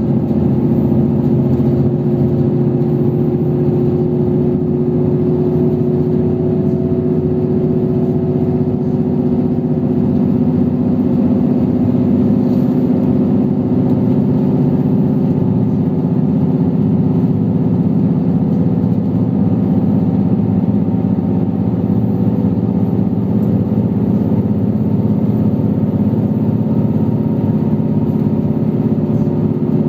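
Train engine running steadily, a loud, even hum holding nearly the same pitch throughout.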